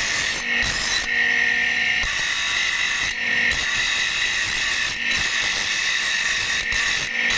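Bench grinder's abrasive wheel grinding a steel axe blank: a steady, harsh grinding hiss, broken a few times where the metal briefly comes off the wheel.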